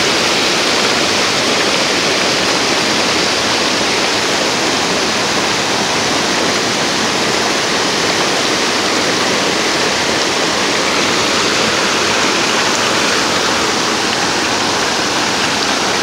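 Fast-flowing river rapids running over boulders and small drops: a steady, even rush of whitewater.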